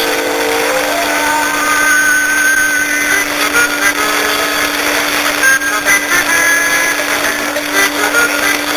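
Distant AM radio reception on a Noblex Siete Mares receiver: a steady hiss of static with a constant low whistle and faint music breaking through.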